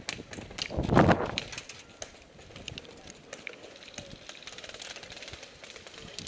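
Scattered sharp clicks and ticks of airsoft play, with a louder rustling thump about a second in.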